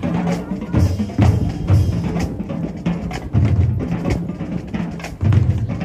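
Marching band drumline playing a cadence: heavy bass drum hits in uneven groupings, with snare strokes in between.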